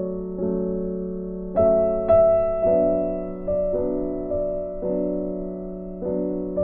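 Background music: soft piano playing slow, sustained chords, a new chord struck about once a second.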